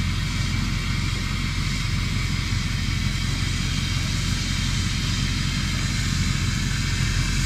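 John Deere combine running steadily at close range, a constant low engine drone with a broad mechanical whir over it.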